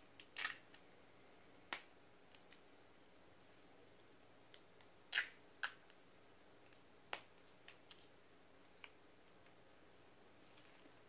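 Sparse, faint crackles and clicks of hands working with adhesive tape and a thin plastic trash bag: tape pulled off the roll and the bag's plastic rustling as it is handled. The loudest crackles come near the start and about five seconds in.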